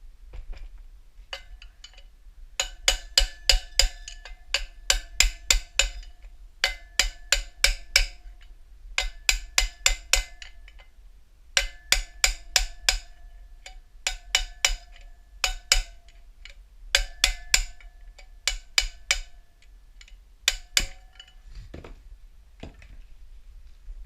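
A hammer striking metal in about eight quick bursts of five to eight blows each, every blow ringing with a metallic tone: a wheel bearing being hammered in the hub of a KTM dirt bike wheel.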